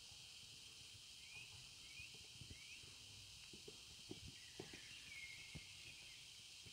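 Faint, irregular thuds of a Selle Français horse's hooves cantering on arena sand, with small birds chirping now and then over a quiet outdoor hiss.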